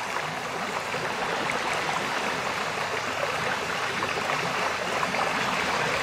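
Small sea waves washing up and lapping over sand: a steady, even hiss of surf.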